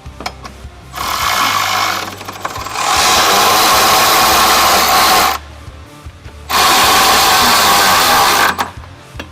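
Electric ratchet with a 14 mm socket running in three bursts, the middle one longest at about two and a half seconds, tightening the bolts of a tow hitch mounting bracket.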